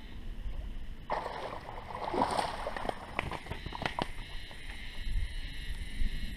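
Water splashing and sloshing for about three seconds, with several sharp slaps: a hooked fish thrashing at the surface as it is reeled in to the bank.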